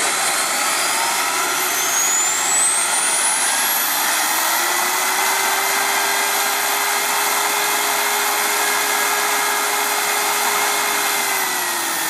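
JetCat SPT 15-RX model turboprop engine in a large-scale Pilatus PC-21 model, running up on the ground. Its high turbine whine and a lower propeller tone climb over the first four seconds or so as the engine is throttled up, hold steady at high power, then drop away near the end as it is throttled back.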